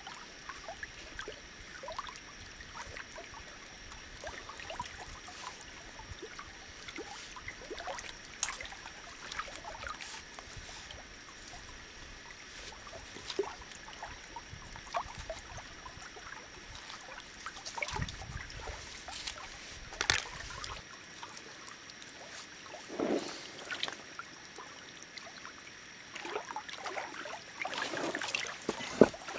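Small lake waves lapping and trickling against shoreline rocks, with scattered light clicks and splashes from hands and a knife cleaning a trout. The splashing grows louder near the end as the fish is rinsed in the lake.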